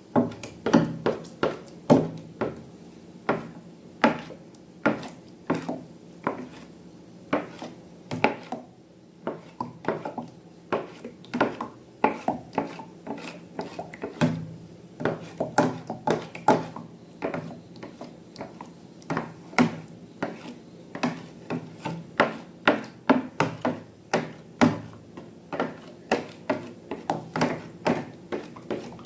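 Slime being worked: irregular sharp clicks and sticky taps, about two or three a second, with a faint low hum beneath.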